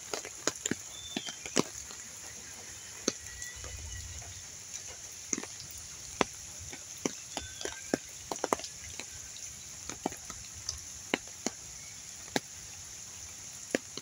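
Heavy rain falling with a steady hiss, with scattered sharp drops tapping close by at irregular intervals.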